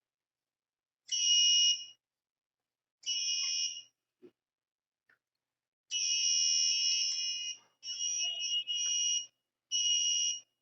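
The Arduino fire alarm's buzzer sounds a shrill steady tone in five bursts of uneven length, from under a second to nearly two seconds, with short silences between. It is set off by the flame sensor detecting a test fire.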